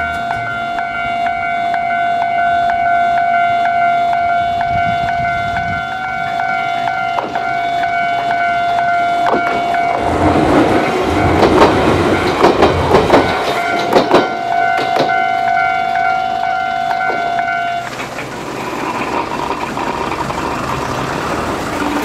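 Japanese level-crossing alarm ringing its repeating electronic bell tone while an Iyotetsu electric train passes over the crossing, with a rush of train noise and loud wheel clacks over the rail joints about halfway through. The bell cuts off a few seconds before the end, leaving road traffic noise.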